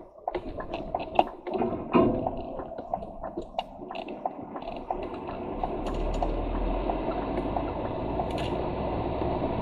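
Lorry cab interior noise: the truck's engine and road noise with scattered clicks and rattles in the first few seconds, then a steadier, slightly louder run with a low rumble from about halfway.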